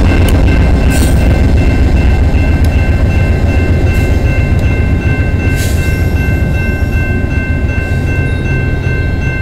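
VIA Rail passenger train, led by a P42 diesel locomotive, rolling past close by: a loud, steady low rumble of locomotive and coach wheels on the rails, easing slightly near the end. A few sharp knocks come in the first six seconds, and a steady high ringing grows stronger from about the middle on.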